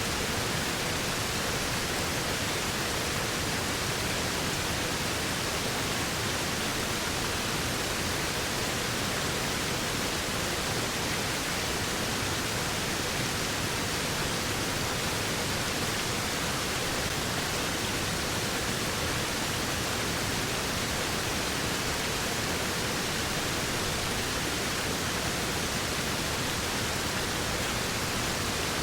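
Waterfall: a steady, unbroken rush of falling water, with hiss at the high end as strong as the low rumble.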